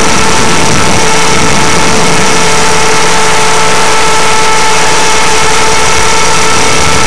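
Align T-Rex 500 ESP electric RC helicopter in flight, heard from its onboard camera: a loud, steady motor whine with several high tones over rushing rotor and wind noise.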